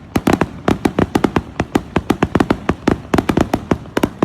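Fireworks going off in a rapid, continuous barrage of sharp bangs and pops, roughly ten a second.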